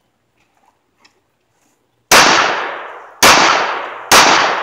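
Three pistol shots about a second apart, the first about two seconds in, from a Taurus 24/7 G2 handgun; each shot trails off in a long echo.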